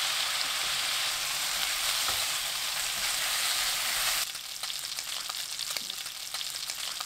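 Sliced pork belly sizzling on high heat in a nonstick frying pan, stirred with a silicone spatula. About four seconds in, the dense sizzle drops suddenly to a quieter crackle with scattered small pops.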